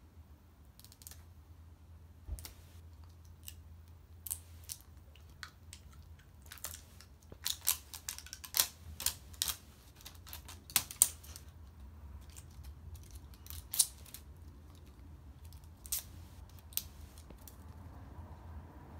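Plastic wrapper being peeled and crumpled off an L.O.L. Surprise toy ball by hand: irregular crinkles and crackles, busiest about halfway through.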